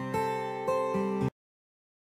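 Background music of plucked-string notes and chords, which cuts off suddenly a little over a second in.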